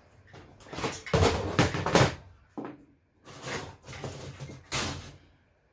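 Handling noise from scrap electronics being taken apart: scraping, rattling and clattering of the equipment's chassis and circuit boards, in several bursts, loudest from about one to two seconds in.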